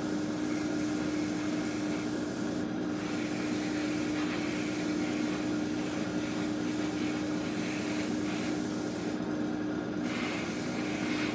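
Airbrush hissing as it sprays primer, the hiss cutting out briefly twice as the trigger is let off, over the steady hum of a hobby spray booth's extractor fan.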